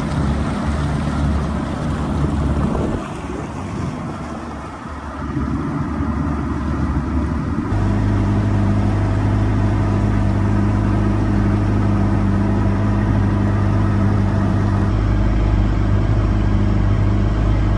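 Small boat's two-stroke outboard motor running steadily under way, over wind and water noise. About eight seconds in the sound changes abruptly to a louder, steadier, deeper engine note.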